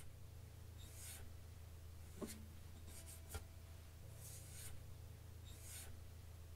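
Faint handling noise of a hand brushing over an acoustic guitar's strings and body: several soft swishes and two light knocks about a second apart, over a low steady room hum. No notes are played.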